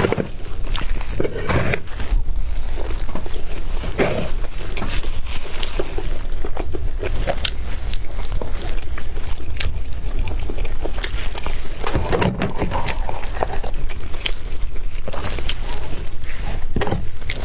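Close-miked eating sounds: a person chewing and biting an egg wrap, with many small wet clicks and crackles from the mouth over a steady low hum.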